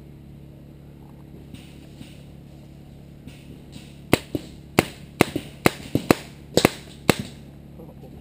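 Paintball marker firing a quick string of about nine sharp pops over some three seconds, starting about halfway in.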